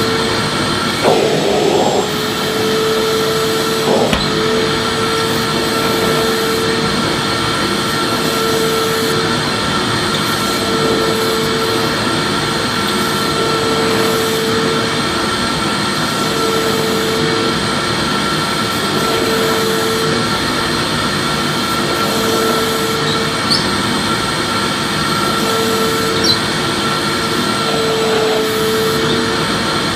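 Vacuum cleaner motor running steadily with a high whine, and a lower tone that wavers in and out every couple of seconds. A few brief knocks come through, near the start and again about three quarters of the way in.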